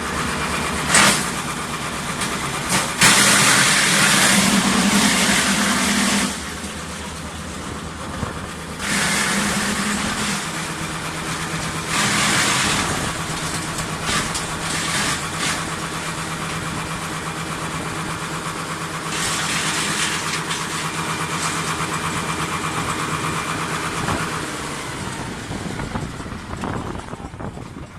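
Wood chipper running steadily, with several louder bursts of noise lasting a few seconds each. It fades toward the end.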